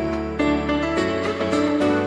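Instrumental background music, a melody of sustained notes over a steady low bass.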